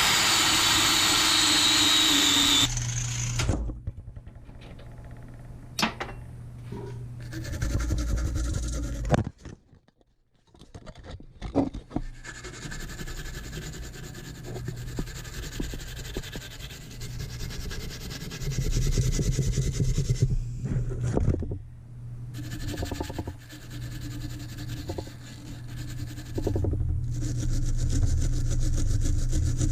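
Electric power tool motor running with a steady hum while a tool rubs and scrapes against metal, in several short segments broken by knocks and sudden changes.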